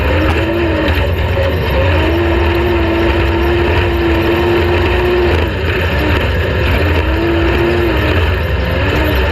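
An off-road race vehicle's engine running hard at a steady pitch, with a brief drop in revs about five seconds in and a climb again near the end.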